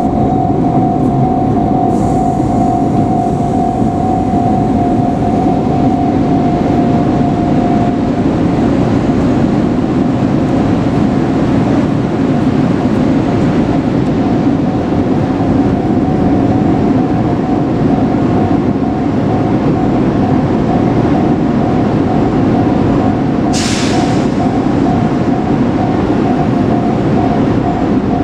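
Train noise, steady and loud throughout, with a steady high ringing tone that weakens after about eight seconds, and a short sharp hiss about 23 seconds in.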